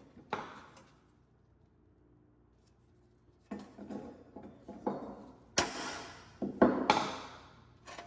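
Rusty sheet-steel parts of an old Pittsburg Cub water heater scraping and clanking as loose clips and a curved strap are worked free by hand. A scrape at the start, a quiet couple of seconds, then a run of scrapes and two louder metal clanks with a short ring.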